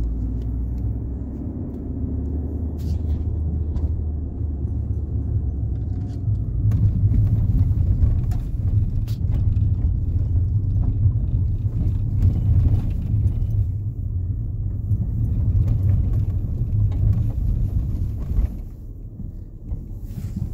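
Fiat Panda driving along, a steady low engine and road rumble that grows louder about six seconds in and eases off near the end.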